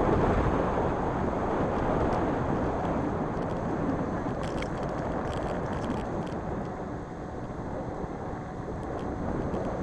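Scooter riding on asphalt: steady rushing wind on the microphone mixed with wheel and road noise, with a few faint clicks around the middle.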